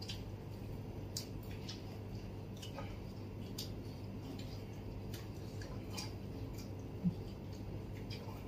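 Light, irregular clicks and ticks of fingers and food against stainless steel plates as people eat by hand, over a steady low hum, with one brief louder low sound about seven seconds in.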